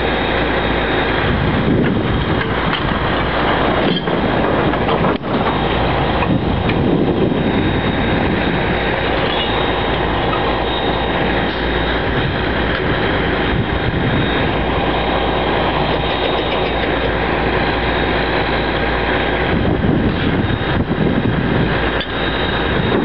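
A heavy engine running steadily and loudly at close range, with a couple of short knocks about four to five seconds in.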